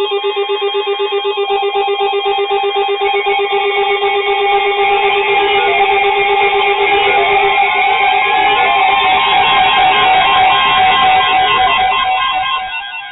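Several weather alert radios sounding their alarms together, set off by the alert for a new severe thunderstorm warning: overlapping steady and rapidly pulsing electronic beep tones, with a tone sliding upward partway through, dying away near the end.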